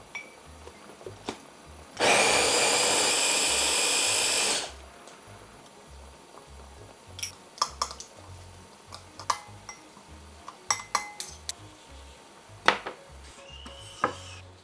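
A small electric mini chopper runs steadily for about two and a half seconds, mincing garlic cloves in its jar, then stops suddenly. Afterwards metal spoons clink and scrape against a glass mixing bowl several times while seasoning is stirred.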